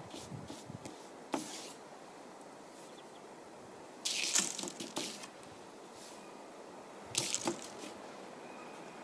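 Paintbrush loaded with wet acrylic paint swept across paper on an easel: three short, scratchy swishes, the longest and loudest about four seconds in.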